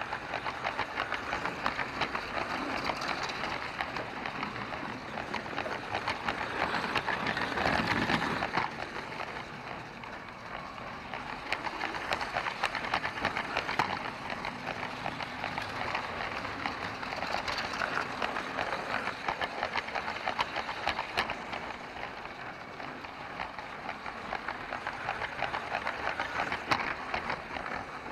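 LEGO train rolling along plastic track, heard from a camera riding on the train: a steady, dense clicking rattle of wheels and carriages, louder for a moment about eight seconds in.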